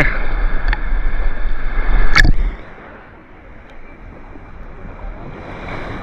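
Wind buffeting the microphone, loud for the first two and a half seconds and then cutting off suddenly, leaving a soft steady wash of small sea waves.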